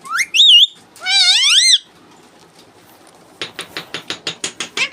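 Pet parrot whistling and calling: a high, rising, wavering whistle, then a longer rising call about a second in. Near the end comes a rapid run of clicks, about ten a second.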